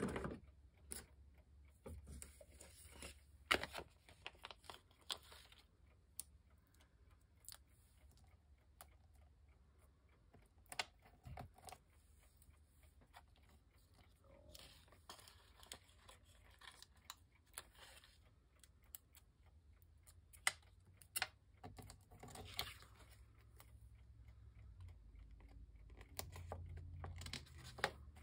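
Faint handling of paper and craft supplies at a work table: scattered light taps and clicks, with a few short stretches of paper rustling.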